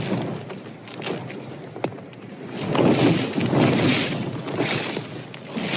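Gale-force wind gusting over a Cloud Peak 2 tent, the fabric buffeting and rattling. The gust swells to its loudest about halfway through, with a couple of sharp snaps.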